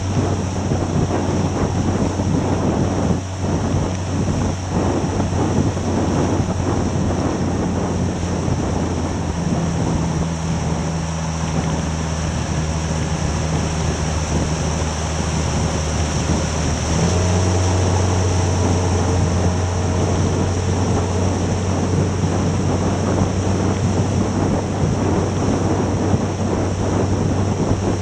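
Outboard motor of a 3D Tender Nividic rigid inflatable boat running underway, a steady low engine note under wind on the microphone and water rushing past the hull. About two-thirds of the way through the engine note strengthens and a faint whine rises as the boat picks up speed again.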